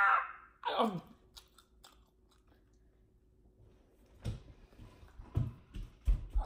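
People chewing soft, sticky dried prunes, with wet mouth clicks close to the microphone. There is a short falling voice sound about a second in, and a few low knocks near the end.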